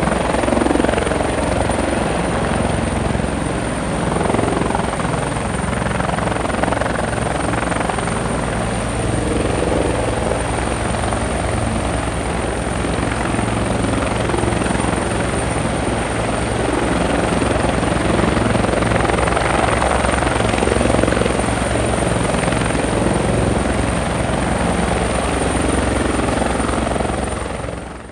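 Helicopter running, its rotor beating in a fast steady pulse under a thin, steady high whine; the sound fades out over the last second.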